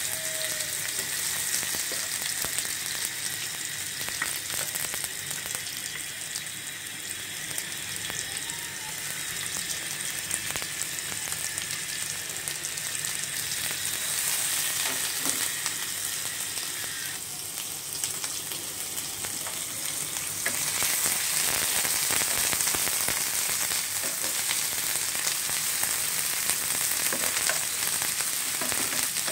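Sliced onions sizzling and crackling in hot oil in a nonstick frying pan, stirred with a spatula. The sizzle grows louder about two-thirds of the way through.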